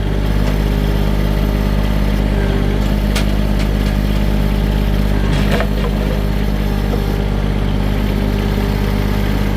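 A vehicle engine running loud and steady at one speed, with a couple of light clanks about three and five and a half seconds in.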